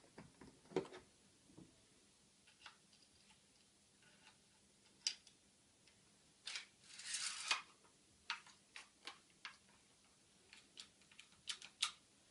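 Faint, scattered clicks and knocks of a brad nailer being handled, its magazine and jam-release parts worked by hand, with a short rustle about seven seconds in.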